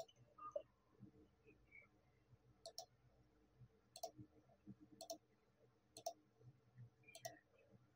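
Faint computer mouse button clicks, five of them about a second apart, as knife-tool cut points are placed.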